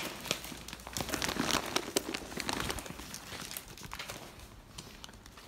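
Footsteps on a paved sidewalk mixed with rustling and knocks from a phone carried while walking. The steps are busiest for the first three seconds or so, then thin out and grow quieter.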